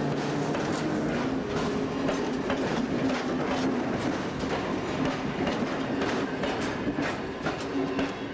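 Old Berlin S-Bahn electric multiple unit, a Class 476 'Nietenreko' rebuilt from a pre-war Stadtbahn train, rolling slowly past. It gives a steady low hum under the clickety-clack of its wheels over rail joints and points, with the clicks coming thicker and sharper near the end.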